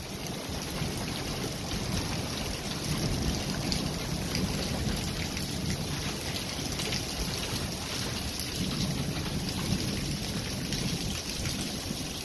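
Strong wind blowing steadily, with gusts buffeting the microphone into a low rumble.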